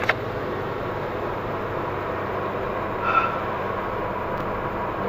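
Steady engine and road noise inside the cabin of a VW Golf V GTI, its turbocharged 2.0-litre four-cylinder cruising at about 60 km/h, with a couple of clicks at the start and a short squeak about three seconds in.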